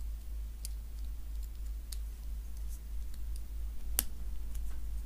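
Snap-fit plastic model-kit parts being pressed together by hand: scattered light clicks, the sharpest about four seconds in, over a steady low hum.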